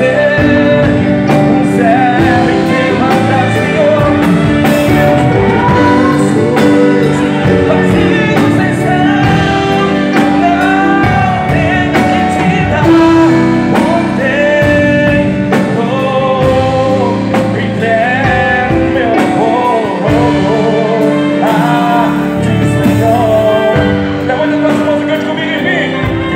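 A man singing into a handheld microphone over instrumental backing music.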